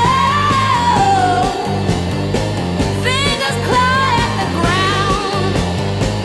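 A rock or pop song playing over a steady bass and drum beat, with a sung melody line coming in and out.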